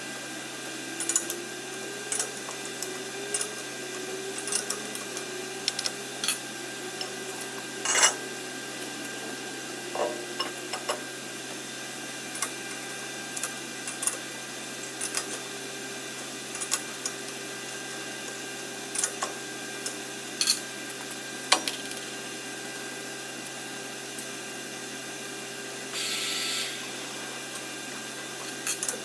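Workshop machine running with a steady hum, its pitch wavering for the first few seconds before settling, with scattered sharp metallic clicks and taps throughout and a short hiss near the end.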